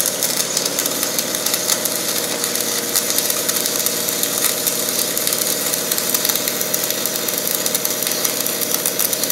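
Engine of an engine-driven welding generator running steadily, with a steady hiss over it.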